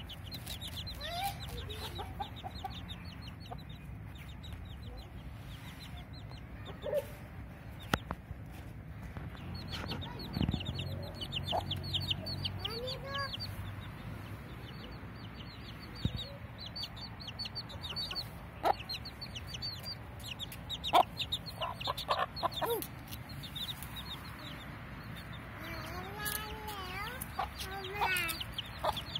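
Young chicks peeping rapidly in high, short, falling notes, mixed with a hen's lower clucking calls. A few sharp knocks stand out here and there.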